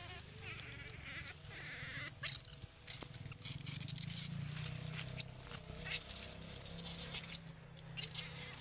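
A series of about eight short, very high-pitched squeaky animal calls, each with a wavering, arched pitch, starting about three seconds in, over rustling and snapping of bamboo stems.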